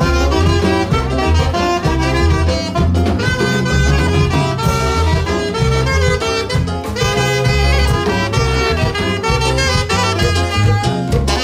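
Live dance band playing an upbeat tune, with a saxophone carrying the melody over a steady bass and drum beat.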